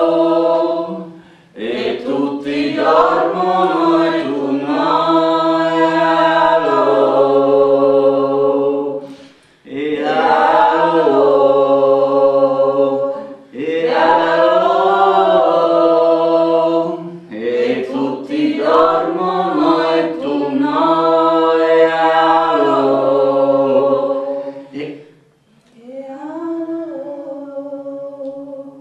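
A small group of voices singing a cappella, a chant-like tune in long phrases with short breaks between them and a low part holding long notes underneath. The last phrase, near the end, is quieter.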